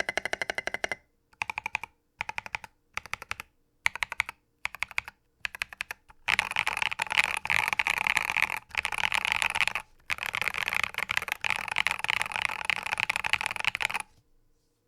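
Typing on a custom mechanical keyboard with lubed Holy Panda tactile switches on a brass plate in a foamed polycarbonate TKL case with SA keycaps. The keystrokes come in short bursts with pauses for the first few seconds, then as fast continuous typing that stops about a second before the end.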